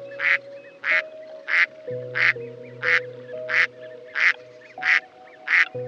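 A duck quacking over and over at an even pace, about three quacks every two seconds, over soft background piano music.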